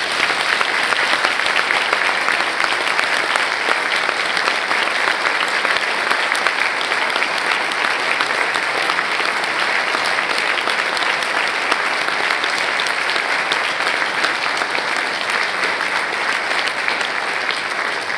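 Audience applauding: a long round of clapping from many hands that starts suddenly and holds steady.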